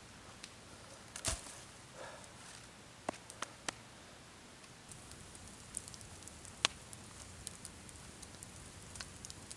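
A chunk of wood thrown down onto snowy brush lands with one thump about a second in, followed by a few light snaps of twigs. Later a campfire crackles with small scattered pops.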